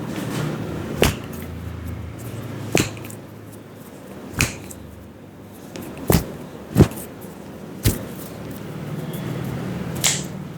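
Hand slaps and claps of an Indian head massage: about seven sharp smacks at uneven intervals, over a low steady hum.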